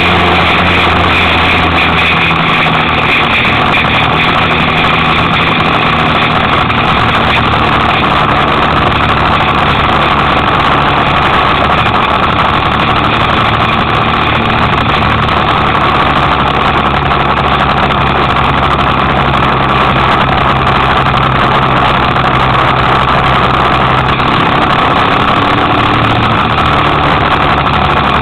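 Kymco Quannon 125 cc motorcycle engine running while under way, its note stepping up and down a few times with the throttle, under a steady rush of wind and road noise.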